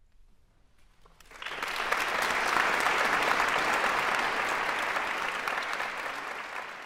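Audience applause, starting suddenly about a second and a half in and holding steady as a dense crackle of many hands, easing off slightly near the end.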